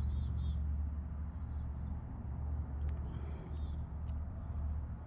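Quiet outdoor background: a steady low rumble with a few faint, short, high chirps, in two small groups.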